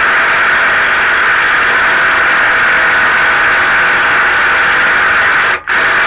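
Power drill running steadily, spinning a bolt into a threaded hole to clean gunk off the threads. It stops briefly near the end, then starts again.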